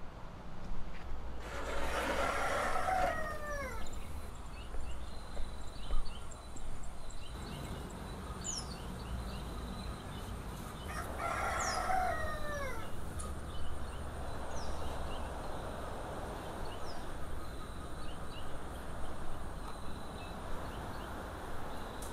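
Rooster crowing twice, about ten seconds apart, each crow a long call that falls in pitch at the end. Small birds chirp faintly over a steady low background hum.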